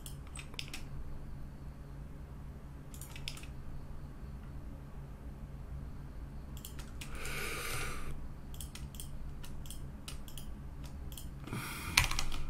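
Scattered computer keyboard and mouse clicks, a few at a time with gaps between, over a steady low hum. A short breathy hiss comes a little past the middle.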